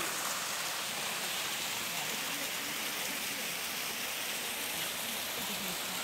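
Steady rushing of water from a canyon stream, an even hiss with no breaks.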